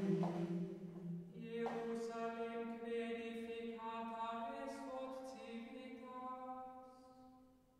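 Slow, chant-like vocal music: long held sung notes that step from one pitch to the next, fading away near the end.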